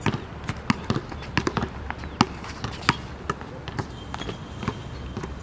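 Basketball dribbled on a hard outdoor court: a string of sharp, irregular bounces, a few a second.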